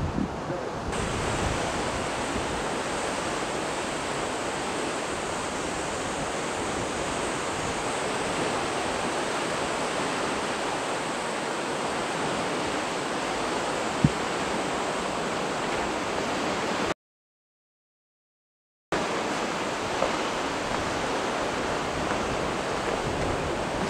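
Steady rushing of water, even and unbroken, with a single short click partway through. The sound cuts out completely for about two seconds and then comes back.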